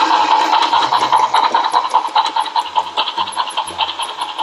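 Toy Thomas the Tank Engine remote-control train playing its steam-chugging sound effect through its small built-in speaker, a steady rhythmic chuff about four times a second.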